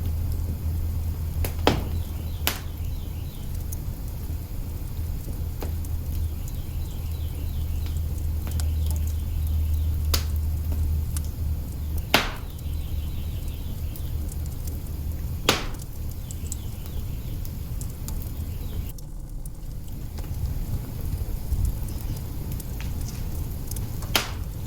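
Wood fire burning in an open kitchen hearth, crackling, with about half a dozen sharp pops scattered through it over a steady low rumble.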